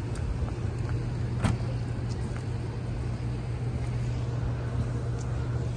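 A car engine idling with a steady low hum. A single sharp click about a second and a half in.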